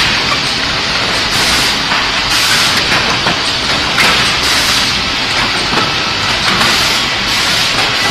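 An optimizing cross-cut saw line running: a steady, loud, hissing machinery noise from the conveyor and saw, with occasional faint knocks of wooden pieces.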